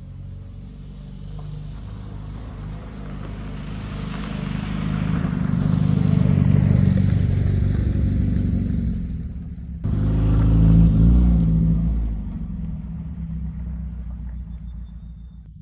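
Morris 1100 S car engine running as the car is driven, growing louder to a peak, then changing abruptly about ten seconds in and fading away.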